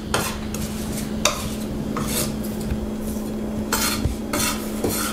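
Chef's knife blade scraping and smushing salted minced garlic against a wooden cutting board in a series of short, irregular strokes. The sound is the garlic being ground down into a paste, with the salt breaking it down.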